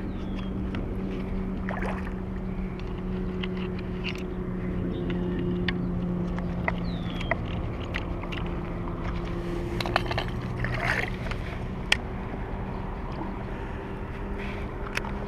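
A baitcasting reel being wound in while a hooked fish is fought on a bent rod, with scattered clicks and handling taps, over a steady low motor hum.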